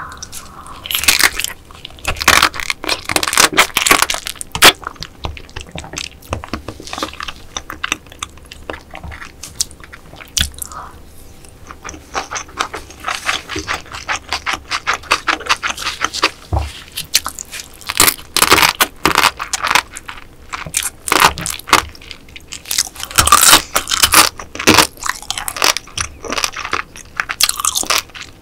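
Close-miked eating of marinated raw crab: biting and crunching through the soft shell and wet chewing. The crackling comes in dense bursts with short quieter pauses between them.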